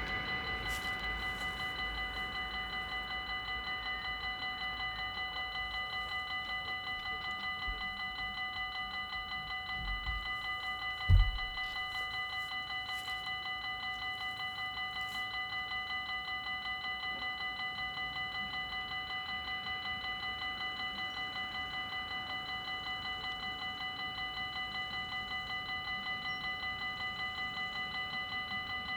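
Dutch level-crossing warning bell ringing in rapid, even strokes without a break. About eleven seconds in there is one short low thump.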